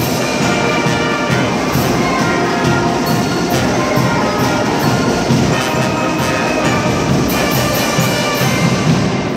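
Cadet marching band's brass section of trombones and trumpets playing a loud passage, with percussion hits cutting through.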